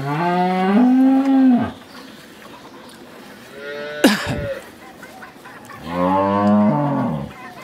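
A cow mooing twice: two long, loud calls, the first rising in pitch at the start and the second about six seconds in. Between them, about four seconds in, comes a brief sharp sound.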